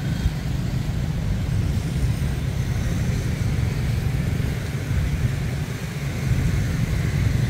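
Steady low rumble of passing road traffic, cars and motorbikes, with no single event standing out.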